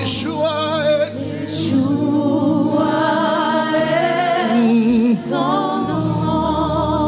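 Gospel worship music: a lead singer and a small group of backing vocalists sing long, held notes with vibrato over band accompaniment.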